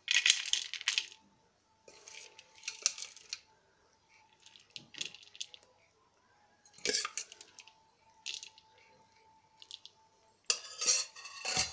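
A metal spoon scooping bhel, a puffed-rice snack mix, out of a pot and tipping it onto a plate: scrapes and clinks of spoon on the vessel, with the rustle of puffed rice falling. It comes in about six separate bursts with short pauses between them.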